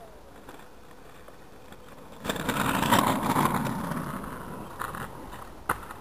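Rolling and wind noise from riding a bike along a paved path: a low, steady rumble that swells suddenly a couple of seconds in, as wind buffets the microphone, then fades. Two sharp clicks near the end.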